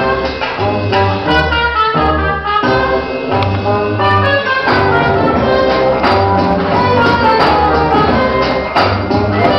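Recorded music for tribal belly dance, played over a loudspeaker: a melody in quick falling runs over a steady pulsing bass.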